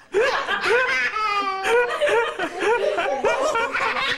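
A baby laughing hard in a quick run of short, high-pitched rising-and-falling bursts, cracking up.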